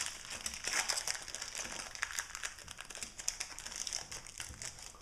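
Foil wrapper of a Pokémon trading card booster pack crinkling and crackling in a quick, irregular stream as hands struggle to tear it open.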